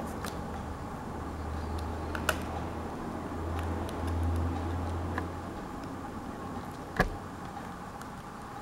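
Faint handling noise with two small clicks, a light one about two seconds in and a sharper one about seven seconds in, as a laptop keyboard ribbon cable is worked into its connector. A low hum runs under the first five seconds or so.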